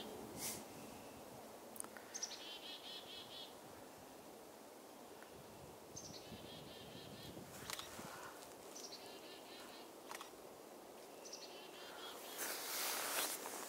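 Chickadee calls, four chick-a-dee series each opening with a high falling note and going on into a quick string of buzzy notes, about every three seconds. Wind rumbles on the microphone throughout and swells briefly near the end.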